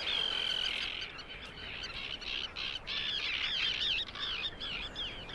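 Colony of terns calling: one long call at the start, then a rapid run of short calls that rise and fall in pitch.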